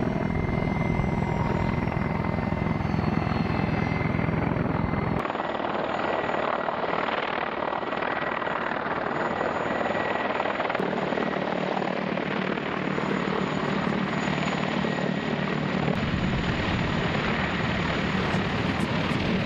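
Mi-35 attack helicopter flying low: steady rotor noise under the high whine of its twin turboshaft engines. The sound changes abruptly about five and again about eleven seconds in, where the shots cut.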